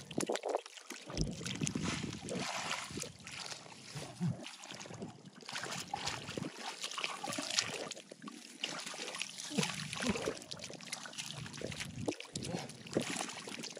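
Splashing and sloshing in shallow muddy water as hands grab at stranded fish and the fish thrash, in irregular bursts.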